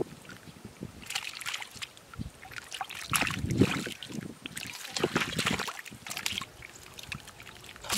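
Hands scooping and working through shallow muddy water and mud, sloshing and squelching in three irregular bursts with quieter gaps between.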